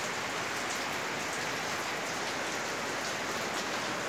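Steady pattering of water dripping through the board gaps of wooden formwork under a concrete slab that has been wetted from above. He suspects the water is seeping through cracks in the concrete.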